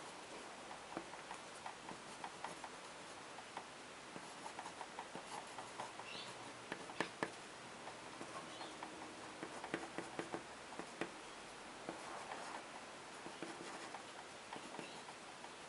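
A pen scratching and ticking on paper in quick short strokes while hatching lines, with two sharper taps about seven seconds in.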